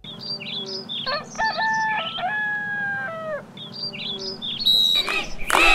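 A rooster crowing once, a long call held and then falling away at the end, among small birds chirping. About five seconds in, a crowd starts shouting.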